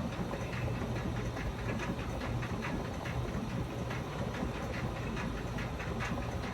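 Steady low hum of a running engine under a even rushing noise, with faint irregular ticks and clicks throughout.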